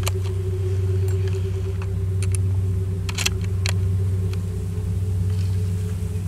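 Vehicle engine idling, a steady low hum. A few sharp clicks and knocks are heard about two to four seconds in.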